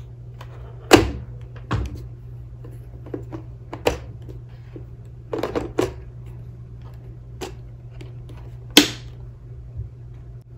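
Hard plastic parts of a robot vacuum being handled and fitted: a string of sharp clicks and knocks, the loudest about a second in and near the end, as the dust bin with its filter goes back into the unit. A steady low hum runs beneath.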